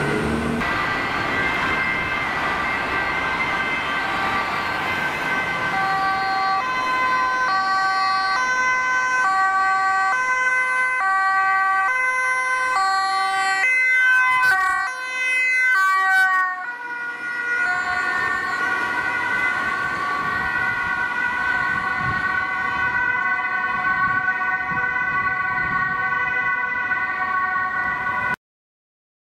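Two ambulances' two-tone sirens sound together, switching high-low about once a second over road noise. About 14 seconds in, one passes close and its pitch slides as it goes by. The sound cuts off suddenly near the end.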